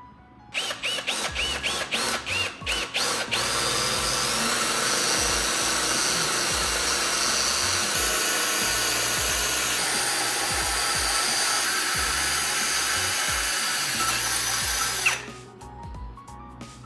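Power drill boring a pilot hole into the steel upright of a tractor's front-loader arm, a hole that is to be tapped for a bolt. It starts with a series of short trigger bursts, each spinning up, then runs steadily for about twelve seconds and stops sharply near the end.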